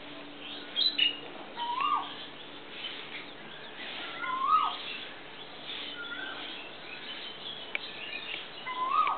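Asian koel, a cuckoo, calling: three short notes, a few seconds apart, each rising then dropping sharply. Other small birds chirp faintly and higher in the background.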